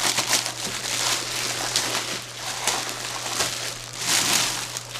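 Packaging crinkling and rustling in repeated bursts as a boxed stand mixer is worked out of its wrapping, over a steady low electrical hum.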